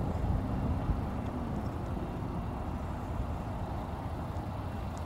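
Steady low rumble of outdoor vehicle noise, with no distinct event.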